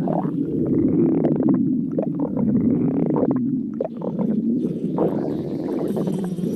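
A stomach growling: a continuous low rumble with gurgles and short higher squeaks rising out of it.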